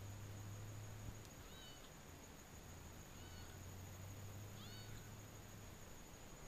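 Faint, distant meowing of a young orange kitten: three short calls about a second and a half apart, over a low hum that comes and goes.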